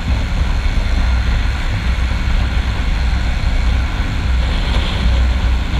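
Hozaka 150 GNX motorcycle's 150 cc engine running steadily at highway cruising speed, with strong wind rumble on the microphone.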